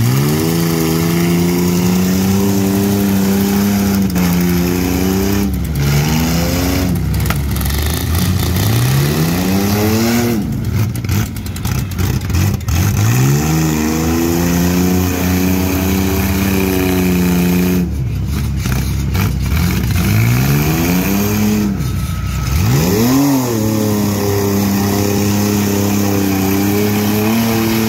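Demolition derby SUV and small-truck engines revving hard, the pitch climbing, holding and dropping back five or six times as the cars drive and ram in the mud.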